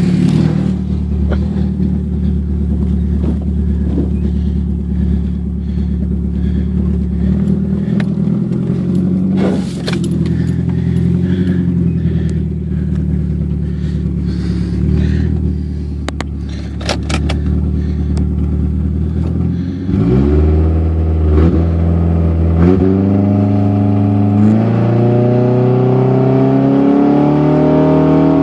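1998 Toyota Camry's engine idling steadily, with a few light clicks in the middle. From about twenty seconds in it is revved up and down several times, each rev climbing higher near the end.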